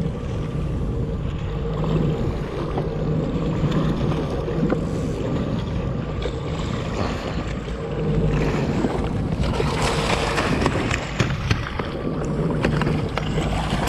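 Jet ski engine idling with a steady hum under wind and choppy water slapping the hull. From about eight seconds in, the splashing gets louder, with scattered knocks.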